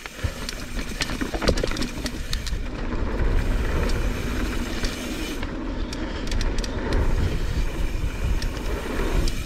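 Mountain bike rolling down a dirt singletrack trail: tyres on dirt and rocks under a steady low rumble, with the bike rattling and clicking over the bumps.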